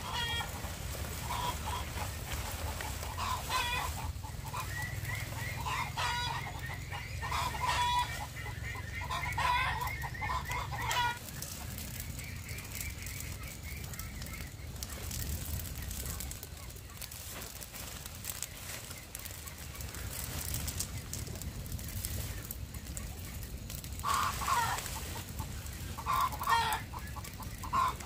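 Chickens clucking, with a rooster crowing, busiest in the first ten seconds and again near the end. In between, sharp crackles from a burning pile of dry palm-leaf thatch.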